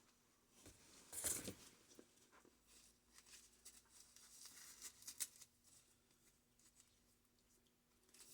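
Faint scraping and rustling handling noises, loudest about a second in, with scattered light clicks around the middle.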